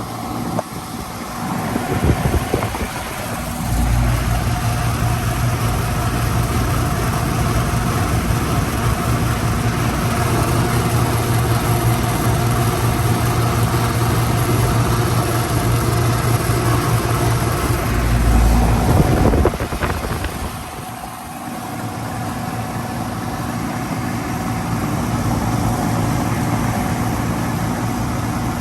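Outdoor condensing unit of a 1994 Goodman CK36 three-ton central air conditioner running, its compressor and condenser fan giving a steady low hum. The hum gets louder about four seconds in, swells briefly near twenty seconds, then dips before settling again.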